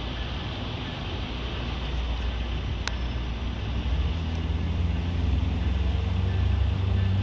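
Amtrak Piedmont train led by an EMD F59PH diesel locomotive approaching. Its deep engine drone grows louder from about four seconds in. A single sharp click sounds about three seconds in.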